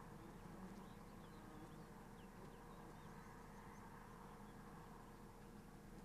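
Near silence: faint outdoor ambience with a low steady hum and a few faint, short bird chirps in the first half.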